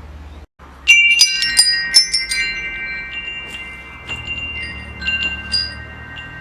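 Wind chime ringing: a quick cluster of strikes about a second in leaves several clear tones ringing on, followed by sparser strikes and a few more just past the middle. A low steady hum runs underneath.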